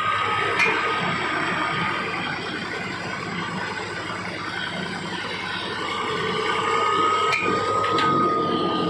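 Pile-rig winch machine running steadily as it works the cable, with a whine over it that fades and comes back stronger about two-thirds through. Two sharp knocks near the end as the heavy steel pile tool comes down to the ground.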